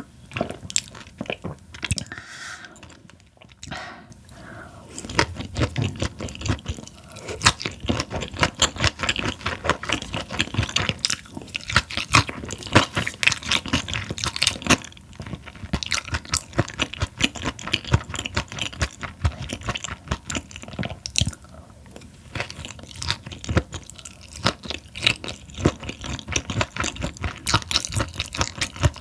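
Close-miked chewing of raw Chinese herring, with a fast run of wet crunches and clicks that pauses briefly about two seconds in.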